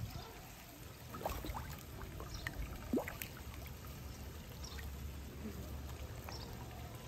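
Water trickling faintly at a pond, with scattered small drips making short rising plinks.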